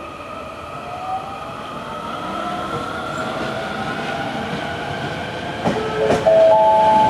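JR West 223 series 1000 electric train accelerating: its VVVF inverter and traction motors give a whine of several tones rising in pitch as the train picks up speed. Clicks of wheels over rail joints come in near the end, together with a loud steady high tone.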